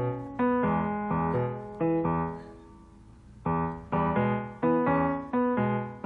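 Background piano music: chords struck every half second or so, each dying away, with a pause of about a second just before the middle.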